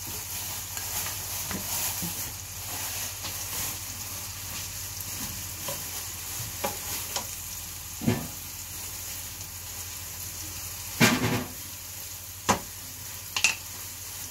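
Diced meat frying in a large pan on a gas hob, with a steady high sizzle. Several short knocks come over it, the loudest a little after eleven seconds in.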